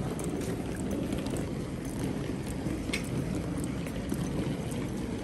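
Wheeled suitcase rolling over paving stones: a steady low rumble with faint scattered clicks as the wheels cross the joints.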